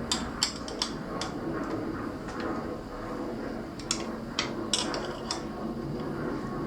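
Sharp metal clicks and clinks of a tool working the pinch bolts on a Shimano XT crank arm, tightened in small turns: a quick run of four clicks, a pause, then four more.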